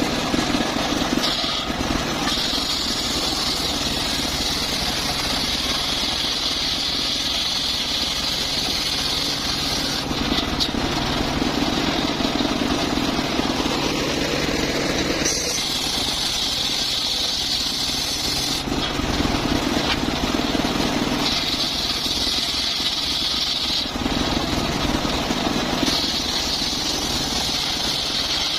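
Circular saw cutting mahogany wood: the machine runs steadily while a high-pitched cutting sound comes and goes in several passes of a few seconds each.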